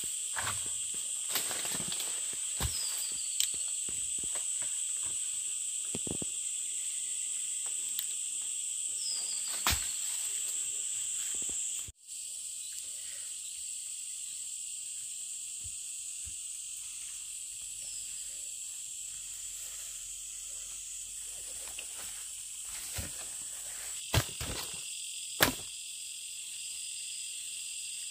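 Steady high-pitched insect chorus, crickets or cicadas, with occasional sharp clicks and knocks; the loudest knocks come near the end.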